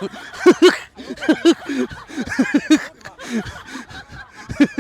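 A person laughing in several short rounds of quick, pitched 'ha' syllables.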